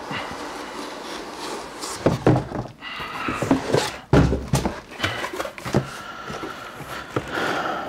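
Cardboard boxes scraping and rubbing as a long inner box is slid out of a larger shipping box, with a few dull thumps, the loudest about four seconds in.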